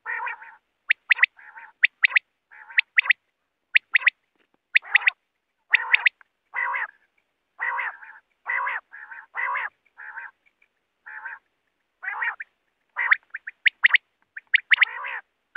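Quail calling over and over: quick sharp high notes, often in twos and threes, alternate with longer, lower notes, with short gaps between the calls.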